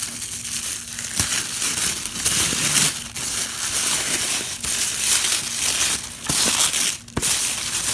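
Packaging wrap being crumpled and crinkled by hand as a parcel is unwrapped, a loud rustling that goes on with a few short pauses.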